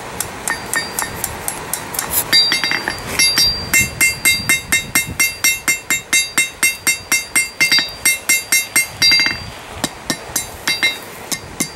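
Blacksmith's cross-peen hammer striking red-hot steel on an anvil, a steady run of blows at about two to three a second, each with a bright metallic ring from the anvil, pausing briefly near the end. The blows are drawing out the hot stock.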